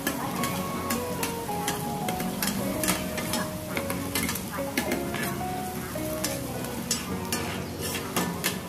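Mussels, egg and batter sizzling in a large flat pan while two metal spatulas scrape and clack against the pan in quick, irregular strokes, turning the hoi tod. A background melody plays along.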